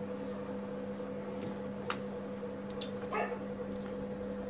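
A steady low hum, with a few faint clicks of the keyboard's plastic case and circuit board being handled, and one short brief rasp about three seconds in.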